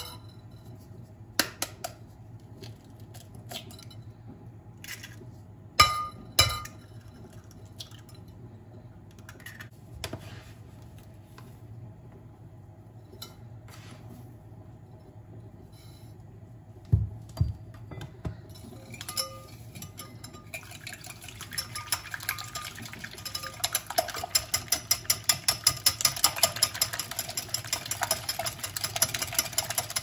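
Scattered taps and clinks of eggs and a metal spoon against an amber glass bowl. Then a metal wire whisk beats eggs and sugar in the bowl with a fast, even clinking against the glass that starts about two-thirds of the way in and grows louder.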